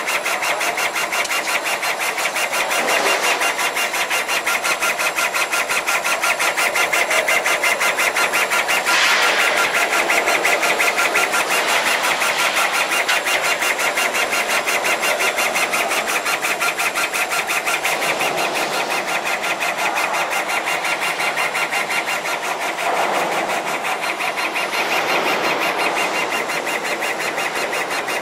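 Multi-head laser cutting machine running as it cuts acrylic sheet: a steady mechanical whirr from its drive motors and moving heads, with a fine, rapid, even pulsing.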